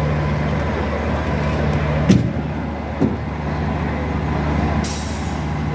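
Large vehicle engine idling with a steady low hum. Two short knocks come about two and three seconds in, and a brief high hiss near the end.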